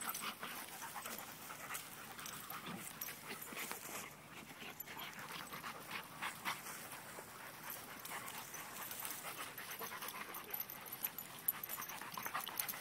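Two dogs play-wrestling on grass: panting, with irregular soft scuffling and rustling as they tumble together.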